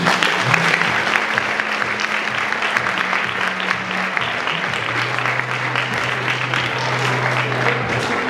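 Many people clapping over music, the clapping dense and continuous, with a steady low note that drops to a lower one about five seconds in.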